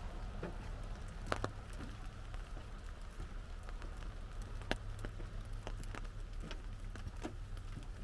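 Raindrops hitting an umbrella: irregular single drops tick sharply over a steady hiss of rain, with two louder drops about a second in and near the middle. A steady low rumble runs underneath.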